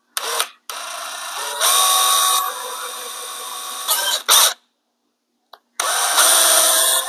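Power drill boring into a thin plastic grille letter held in the hand, worked in trigger bursts: a brief blip, a run of about four seconds that gets louder for a moment partway, then after a short pause another run near the end.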